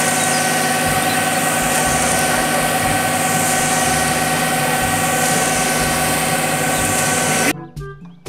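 Concrete mixer truck's diesel engine running steadily with a steady whine as the truck discharges concrete down its chute. It cuts off abruptly near the end.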